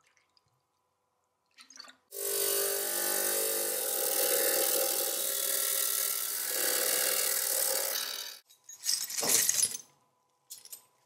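Small ultrasonic cleaner running for about six seconds, a steady buzzing hiss as it works on small metal parts in a liquid bath; it stops abruptly, and a short loud clatter follows about a second later as the wire basket of parts is handled.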